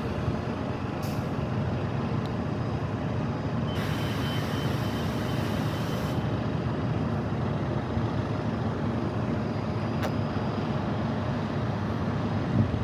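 City transit bus idling with a steady low engine rumble. About four seconds in, an air-brake hiss lasts about two seconds.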